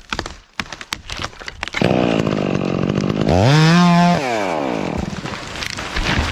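Stihl MS 661 chainsaw brought up to speed about two seconds in, then revved sharply to full throttle for about a second and let back down, as in a short cut at the felling hinge. A few sharp knocks come before the saw is heard.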